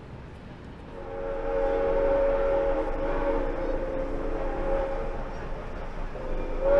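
Steam whistle of Soo Line 1003, an ALCO 2-8-2 Mikado locomotive, blowing a long, steady blast that starts about a second in, dips briefly near the end, then sounds again.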